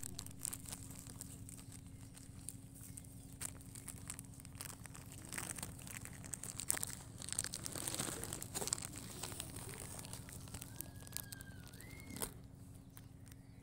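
A puppy chewing and tugging at a plastic snack wrapper, the plastic crinkling and crackling in irregular bursts. There is a brief high gliding squeak near the end.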